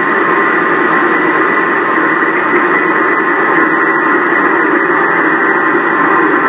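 Electrodynamic vibration test shaker running a random vibration profile: a loud, steady noise that stops sharply at a fixed top pitch, mixed with a metal clanking from the shaker.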